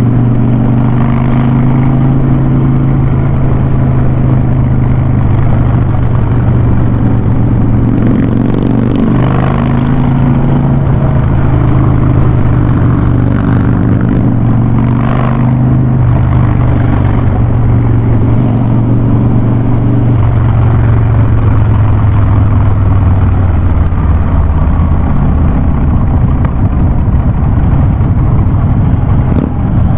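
Harley-Davidson Ultra Classic's V-twin running through a loud aftermarket Vance & Hines Big Radius exhaust while riding, a steady deep drone whose pitch drops a little in the last third as the engine slows.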